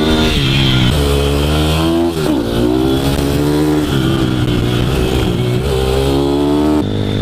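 Pit bike's single-cylinder four-stroke engine, heard from a camera mounted on the bike, revving up and dropping back several times as the rider accelerates out of and brakes into tight corners.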